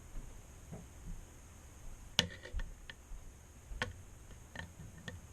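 Irregular light metallic clicks and ticks of a lock pick working the pins of a small four-pin Chicago cabinet lock, the sharpest click about two seconds in.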